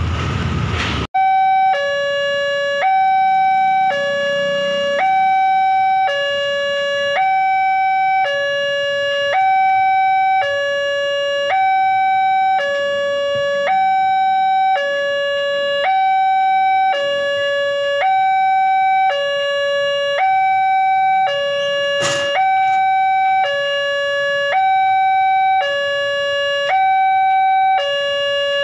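Electronic level-crossing warning bell sounding from the crossing signal's loudspeaker: a two-tone chime alternating a higher and a lower note, about one high-low pair every 1.4 seconds, while the red lights flash and the barrier is down. In the first second a container truck passes with a loud road rumble, and there is one sharp click about 22 seconds in.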